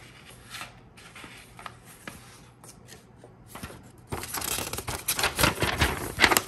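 Paper instruction sheet being handled: faint rustling at first, then loud crinkling and rustling from about four seconds in as the sheet is moved.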